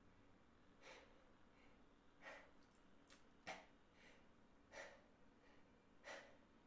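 Faint breathing: five short, noisy breaths, about one every second and a half.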